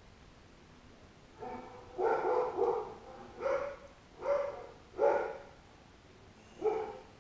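Dogs barking, about seven barks in short runs starting a second and a half in.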